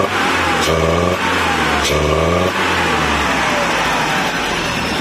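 1981 UAZ 452's 2.5-litre petrol four-cylinder engine, fed by a newly fitted SU carburettor, revved by hand in about four quick blips, each a short rise in pitch, some ending in a sharp click, then settling to a steady idle about three seconds in. The owner reckons it is probably not getting enough fuel and needs a richer SU needle.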